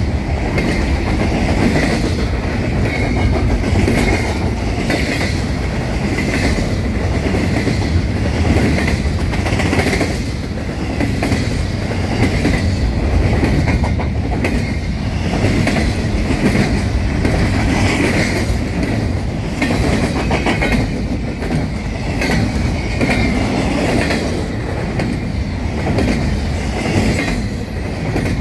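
Double-stack container well cars of a freight train rolling past close by: a steady rumble of steel wheels on rail with rapid clickety-clack over the joints and a faint high wheel squeal that comes and goes.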